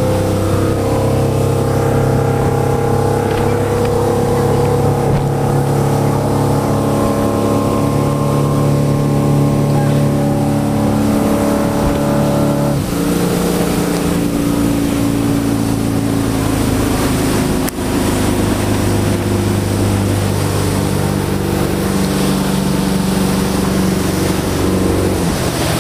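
Motorboat under way at speed: the engine runs with a steady drone over the rush of water spraying off the hull. The engine note changes about halfway through.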